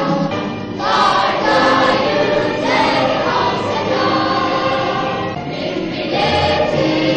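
Choral music: a choir singing in long, held notes that change every second or so.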